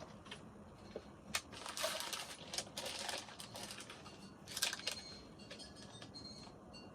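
Rummaging through packets of small hardware: crinkling packaging and small parts clicking and rattling in irregular bursts, loudest about four and a half seconds in.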